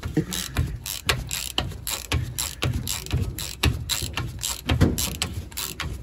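Ratcheting torque wrench clicking in quick, uneven back-and-forth strokes as connecting-rod bolts are tightened.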